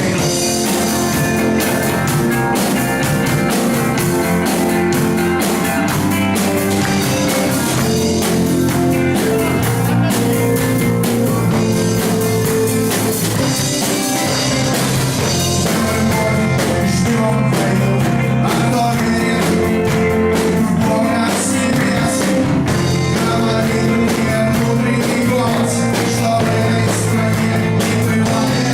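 Rock band playing a song: electric guitars, bass and drums at a steady, loud level.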